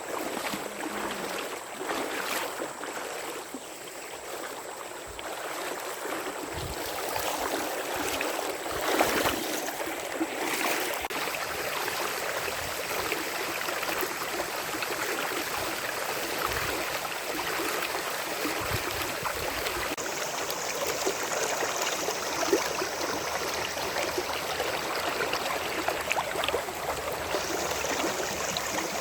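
Steady rainfall, an even hiss of falling rain with scattered drops ticking and a few heavier drops knocking close by.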